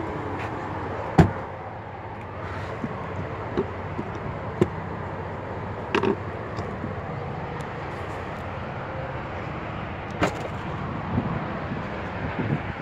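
An SUV's rear passenger door shutting with one loud thud about a second in, followed by a few lighter clicks and taps over a steady background hiss.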